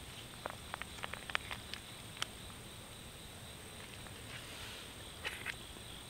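Foil MRE food pouch crinkling in a quick run of short crackles as it is squeezed out, with a few more crackles about five seconds in, over a steady outdoor hiss.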